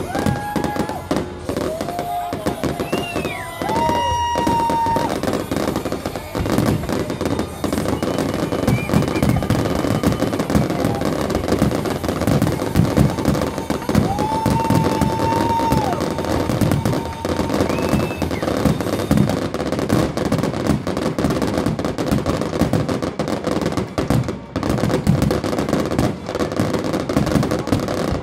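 Fireworks grand finale: a rapid, nearly continuous barrage of aerial shell bursts and crackling. A few long whistles rise and fall over the bangs, a couple of seconds in and again around halfway.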